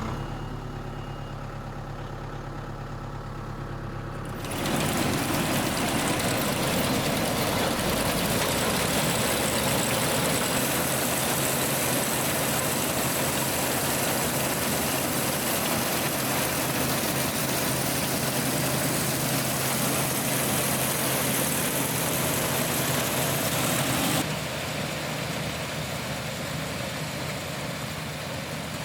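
Tractor engine idling, then about four and a half seconds in the PTO-driven New Idea picker sheller is engaged and runs with a loud, steady mechanical rush of chains, belts and blower over the engine. It drops somewhat in level near the end.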